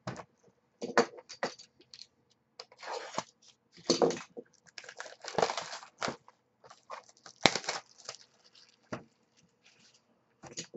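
A cardboard box of trading cards being handled and unwrapped by hand: tearing and rustling in irregular bursts, with small clicks and scrapes.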